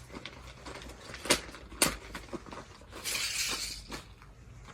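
Handling noise as clothes are shown: two sharp clicks about half a second apart, a few lighter ticks, and a brief rustle a little after the middle.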